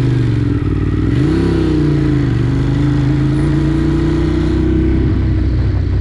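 Motorcycle engine running under way, its pitch rising quickly about a second in and then climbing slowly, over a steady low wind rumble.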